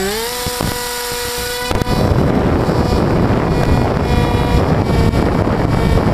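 Bixler 2 RC plane's electric pusher motor and propeller, heard from the onboard camera: the motor settles into a steady whine just after winding up in pitch. Less than two seconds in, a loud rush of wind over the microphone takes over as the plane gets under way, the motor's whine still faint beneath it.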